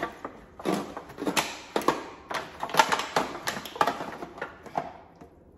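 Knife carving a rotisserie chicken in a disposable aluminium foil pan: an irregular run of crunches and crackles as the blade cuts through the bird and presses on the crinkling foil. It stops about five seconds in.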